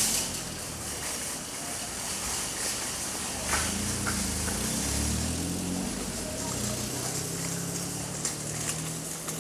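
Public-place ambience: a steady wash of background noise with indistinct voices murmuring. A sharp click opens it and another comes about three and a half seconds in.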